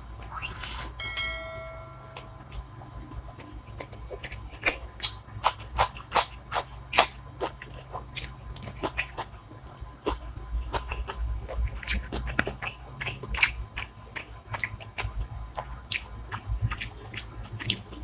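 Close-miked chewing, crunching and wet mouth sounds from someone eating hilsa fish biryani with fried hilsa, as many sharp crunches and clicks over a low steady hum. About a second in, a brief ringing tone sounds for about a second and a half.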